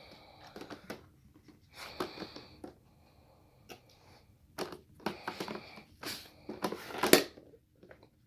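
Dog working at a treat puzzle box: scattered clicks and knocks as it noses and paws at the box's lids and sliding parts, the loudest knock near the end.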